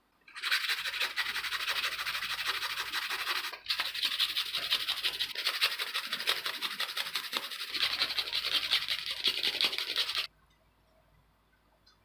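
A sanding sponge rubbed quickly back and forth over a plastic model-kit part to smooth away a leftover nub mark, making a steady scratching that breaks briefly about three and a half seconds in and stops abruptly about ten seconds in.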